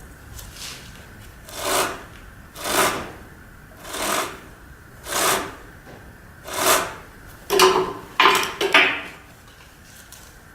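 Repeated rasping rubs: six strokes about a second apart, then three quicker ones near the end.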